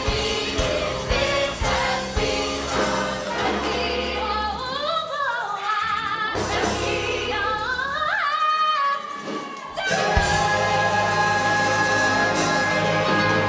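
Musical-theatre song: women's voices singing a duet with vibrato over orchestral accompaniment, the band thinning out under the voices in the middle and a long held chord coming in about ten seconds in.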